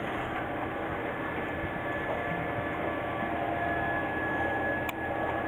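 A steady mechanical drone with faint, steady whining tones over it, and a single sharp click near the end.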